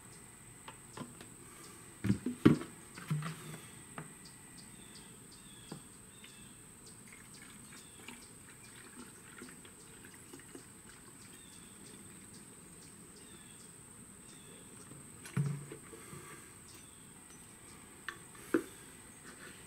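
Liquid cleaner being poured from plastic jugs into a small plastic foam-cannon bottle, with trickling and small ticks. Handling knocks of the jugs and bottle come in clusters about two seconds in and about fifteen seconds in, and two sharp clicks follow near the end.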